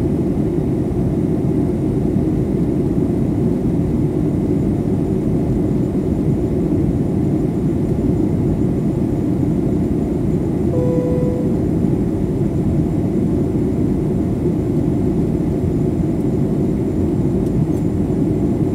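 Steady cabin noise of a Boeing jet airliner in flight: a low, even rumble of engines and airflow. About eleven seconds in, a short single chime tone sounds over it.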